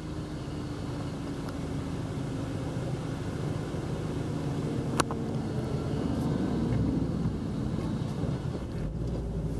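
A tractor's engine running as it drives along the road: a steady drone whose note dips slightly and then rises again, growing a little louder past the middle. A single sharp click sounds about halfway through.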